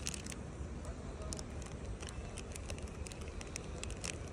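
A plastic snack wrapper crinkling and crackling as a macaque handles it, with a few sharp crackles, the loudest at the start and about four seconds in, over a steady low rumble.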